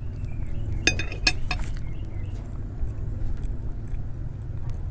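Metal spoon and fork clinking against a glass plate, a few sharp ringing clinks about a second in, over a steady low hum.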